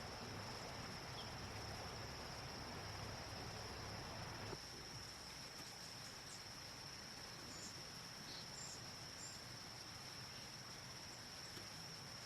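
Faint, steady high-pitched insect trill over background hiss. A low rumble underneath stops about four and a half seconds in.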